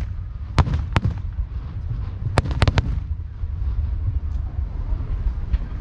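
Aerial fireworks shells bursting in sharp reports: two about half a second apart early, then a quick cluster of four around the middle, over a continuous low rumble of further booms.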